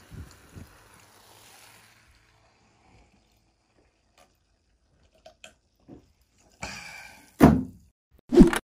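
Carbonated drink fizzing in a cup, the fizz dying away over the first two seconds, with a couple of soft knocks as the cup is handled. Near the end, two loud, short sounds about a second apart, each sliding down in pitch.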